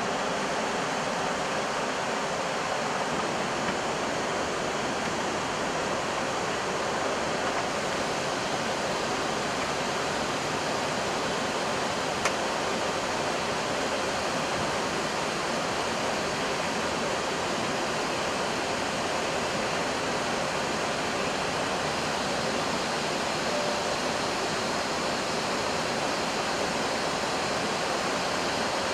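Steady rushing noise on an Airbus A320 flight deck in flight: air streaming over the nose and windshield, together with the cockpit air-conditioning. A single faint click about twelve seconds in.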